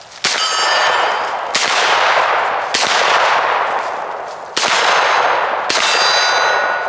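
About six gunshots fired at a steady pace, roughly a second apart, each answered by a steel target ringing on the hit and fading out before the next shot.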